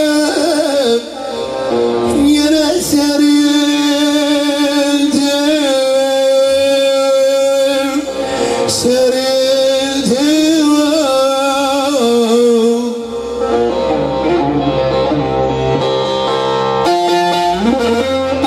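A man singing a Turkish folk song in long, wavering held notes over an amplified bağlama (saz). The singing stops about thirteen seconds in and the saz plays on alone.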